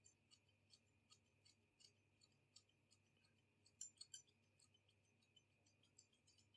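Faint snips of small scissors cutting hair, with three sharper snips in quick succession about four seconds in.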